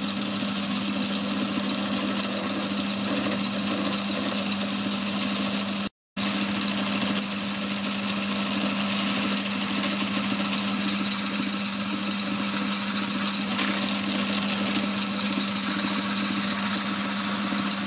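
Belt-driven micro lathe running with a steady hum while a wooden stick is pressed against the spinning work to load it; under the load its bronze-on-bronze cone clutch slips. A thin high whine comes in about eleven seconds in.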